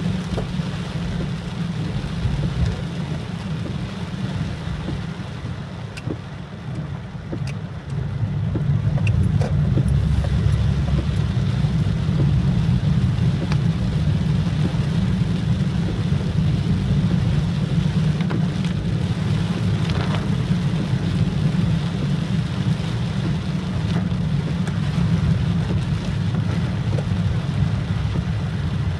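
A car driving on a wet road in rain: a steady low road rumble under an even rain hiss, with a few faint raindrop ticks. It gets louder about eight seconds in.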